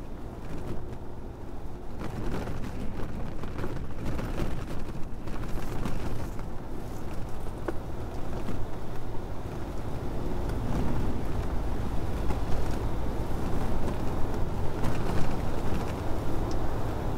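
Steady low rumbling noise, with no clear tone or rhythm, that grows a little louder about two seconds in and again near ten seconds.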